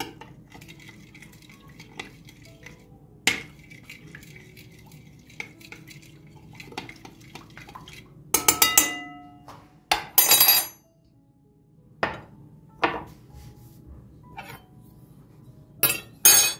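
Kitchen dishes and utensils clinking and knocking as bowls, a glass and a spoon are handled for mixing dough. Scattered single knocks, with louder clattering clinks about eight and ten seconds in that ring briefly, and two more near the end.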